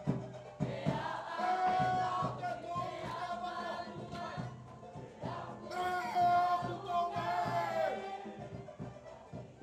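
A choir of voices sings a Cook Islands song in several parts, over a regular percussion beat.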